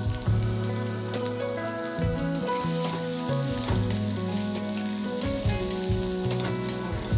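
Sliced onions sizzling as they fry in oil in an aluminium kadai, with a metal spatula scraping now and then as they are stirred. Background music with held notes plays underneath.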